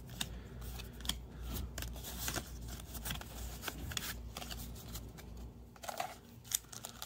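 Yu-Gi-Oh trading cards being flipped one at a time in the hand, card stock sliding and snapping against the stack in a string of faint light clicks. Near the end, a foil booster pack rustles as it is pulled from the box.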